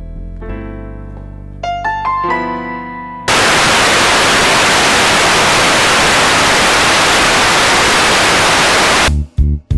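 A few soft piano notes, then a sudden, loud hiss of analogue TV static that runs for about six seconds before cutting off into a pulsing electronic beat near the end.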